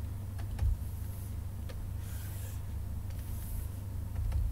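A few faint, scattered computer mouse clicks over a low, steady hum.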